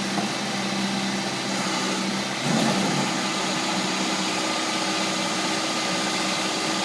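John Deere 410C backhoe's diesel engine running steadily, with a brief swell in level about two and a half seconds in.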